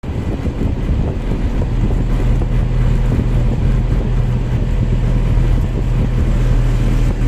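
A vehicle driving at steady speed: a low, even engine drone with road and wind noise.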